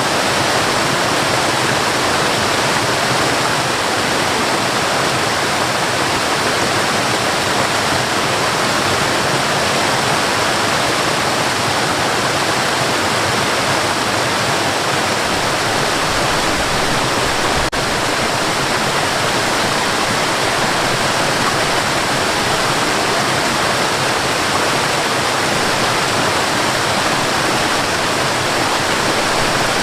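Waterfall on a forest river: a steady, unbroken rush of falling and flowing water.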